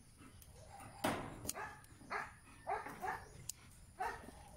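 A dog barking in a run of short barks about half a second apart, starting about a second in. A sharp snip of scissors cutting a chilli stem comes about a second in.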